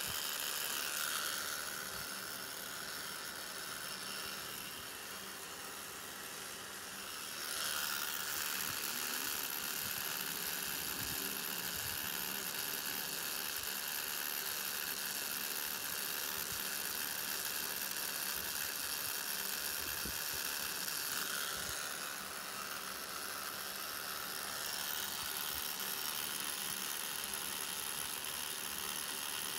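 Rotary tattoo machine with a cartridge needle running steadily as it works black ink into skin, a continuous whir that dips a little quieter for a few seconds twice.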